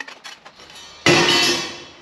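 Music with drums, with a loud crash like a cymbal about a second in that rings and fades away over most of a second.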